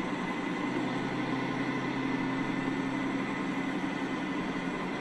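Steady road and engine noise heard from inside a moving vehicle on a highway, an even rumble with a faint constant hum.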